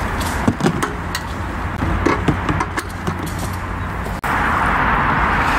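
Battery-powered siphon pump running while it transfers kerosene from a jerry can into a kerosene heater's tank, with small handling clicks. Steady traffic noise runs underneath, and the sound cuts out for an instant about four seconds in, then comes back louder.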